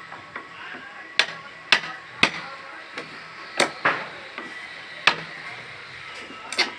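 Hammer blows on wood: about seven sharp knocks at uneven intervals, two of them close together near the middle and a quick double near the end.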